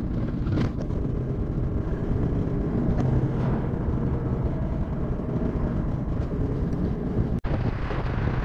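Steady low road rumble of tyres and engine, heard from inside a moving vehicle at highway speed. It briefly cuts out a little past seven seconds in.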